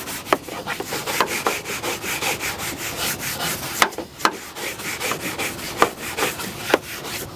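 Nylon-bristled fingernail brush scrubbing the grainy textured plastic of a car bumper in quick repeated strokes, with a few sharper clicks.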